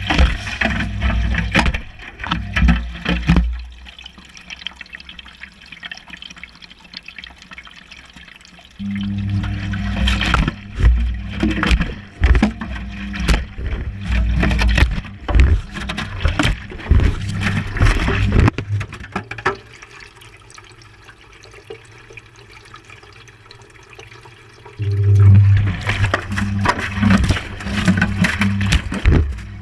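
Whirlpool Indiana 1400 washing machine heard from inside its drum during a wash: water sloshing and laundry tumbling with the motor's hum and repeated knocks. The drum turns in spells, stopping twice for pauses of about five seconds.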